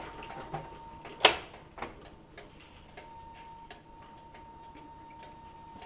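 Stainless stovetop kettle giving a faint, thin steady whistle as the water comes to the boil, with light regular ticks about every half second and one sharp click about a second in.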